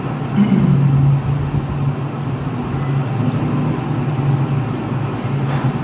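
A steady low mechanical hum with a noisy background.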